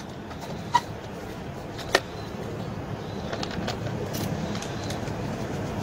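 Plastic recoil starter housing being handled and fitted onto a brush cutter's engine: two sharp clicks about a second apart. Underneath is a steady rumbling noise that slowly grows louder.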